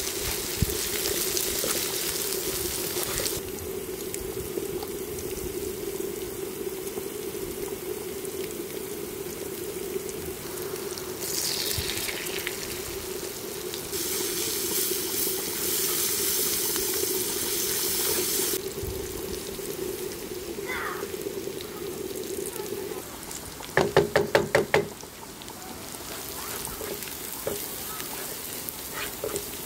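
Sliced onions and garlic sizzling in oil in a pan, stirred with a wooden spoon, over a steady hum. The sizzle swells at the start and again about halfway through. A loud, rapid rattle lasts about a second near the end.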